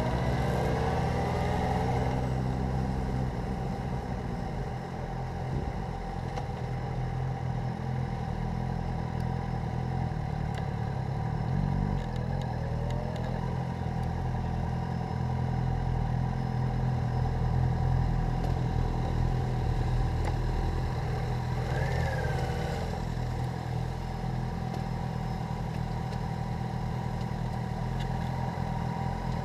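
Motorcycle engine running steadily on the road, with its pitch rising briefly a few times as the throttle is opened.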